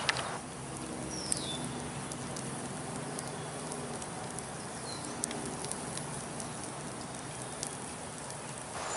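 Small campfire of dry sticks and brush burning, a steady hiss of flames with a few sharp crackles and pops.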